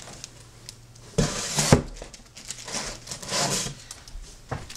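A stack of comic books being handled and set down on a wooden desk: paper rustling in a couple of bursts, with a sharp knock about two seconds in and a softer one near the end.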